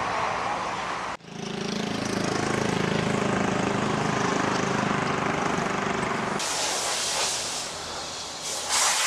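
Street traffic noise: a steady hiss, with a motor vehicle's engine running close by from about a second in until about two-thirds through, after which the hiss turns brighter.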